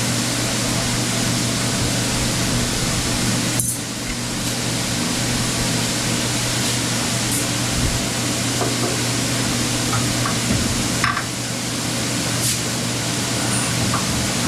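A dust-collection blower fan running: a steady rushing hiss over a low hum, dipping briefly twice, with a few faint knocks.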